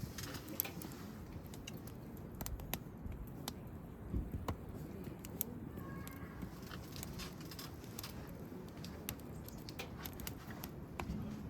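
Wood campfire burning, with irregular sharp crackles and pops over a low rumble.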